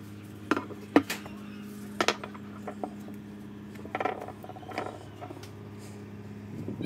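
Sharp clinks and knocks of a rusty cleaver blade and the broken pieces of its old handle being handled and pulled off the tang over a board, the loudest about a second in, over a steady low hum.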